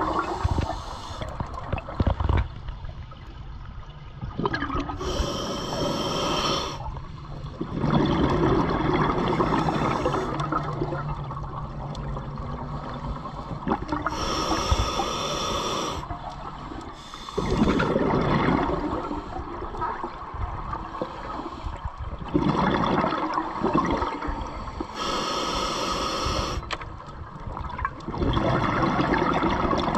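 A scuba diver breathing slowly through a regulator underwater. Each breath is a hissing inhalation followed by a longer rush of exhaled bubbles, about every ten seconds, three times.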